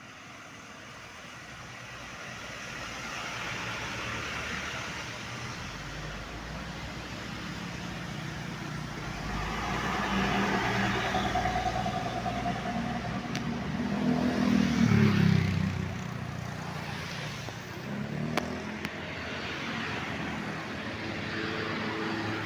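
A road vehicle approaching and passing by: its engine rumble builds slowly, peaks and drops in pitch about fifteen seconds in as it goes past, then steady traffic noise carries on.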